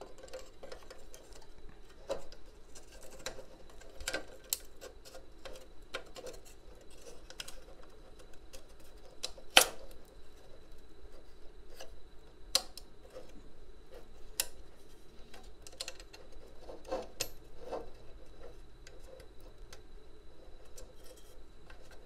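Scattered small clicks and taps of the metal bracket and blue plastic latch of a Dell PowerEdge R820 PCIe riser cage being handled as a card is fitted, with a sharper click about ten seconds in and another about three seconds later.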